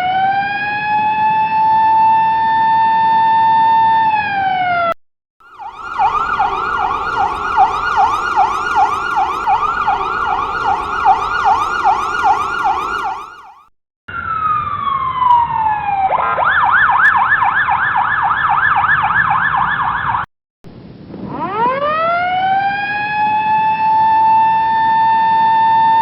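A run of ambulance siren sound effects cut one after another with brief silences between them: a siren winding up to a steady held tone that drops away about five seconds in, then a rapid repeating warble, then a single falling tone that switches to a fast warble, and finally the wind-up to the steady held tone again.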